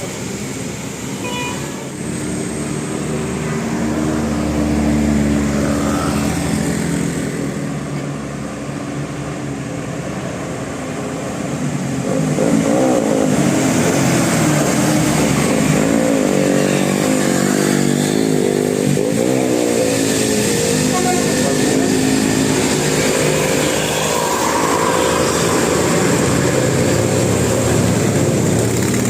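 Large buses' engines running and revving close by, the pitch rising and falling, louder from about twelve seconds in.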